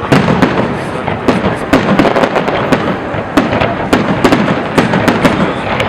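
Fireworks salute: a rapid, irregular run of bangs and crackling reports, several a second, over a continuous rumble from the shells.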